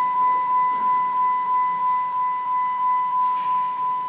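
Dashboard warning chime of a 2006 Dodge Ram 1500, a single high tone repeating steadily about three times a second.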